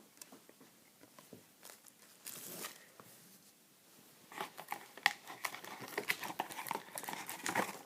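A trading-card pack wrapper crinkling and tearing as it is opened, starting about four seconds in, after a few faint clicks of cards being handled.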